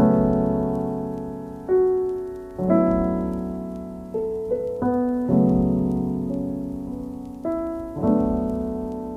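Background music: slow piano chords, each struck and left to ring and fade before the next.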